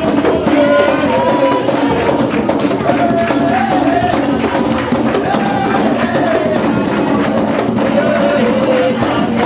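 A group of women singing a song together, clapping their hands to a steady beat with percussion.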